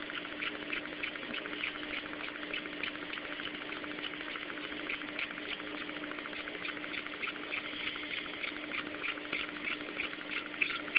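Computer-fan motor with a CD rotor spinning in a homemade magnet-motor rig: a steady whirr with a rapid, even ticking of about four to five ticks a second over a constant low hum. A little friction is being put on the wheel to slow it down.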